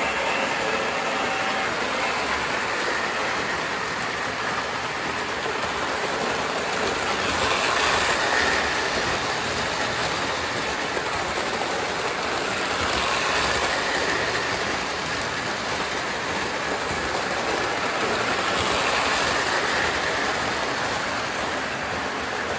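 Lionel model train running on its metal track: a steady rattling rumble of wheels on the rails with the electric motor's hum, swelling a little three times as it passes close.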